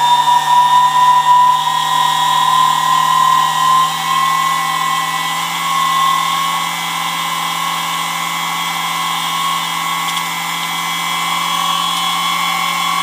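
Dumore sensitive drill press's brushed electric motor running with a steady high whine, its pitch creeping slowly upward over the first few seconds as it takes time to come up to full speed. The sluggish, wavering speed is something the owner suspects is not right, with a theory of gummy grease in bearings left sitting, or worn brushes.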